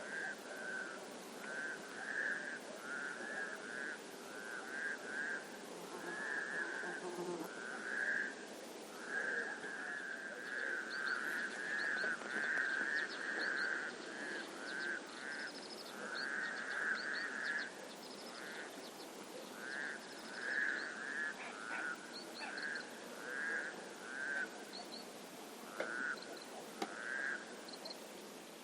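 Frogs calling in a chorus: short pulsed croaking calls that overlap and repeat throughout, with short high chirps joining in from about ten seconds in.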